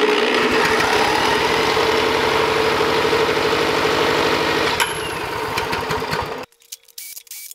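Weed Eater push mower's small engine being cranked over for a compression test: a steady mechanical run with a quick regular pulse and a steady whine, stopping suddenly near the end. The compression reading it builds, 109 psi, is back to normal for this engine.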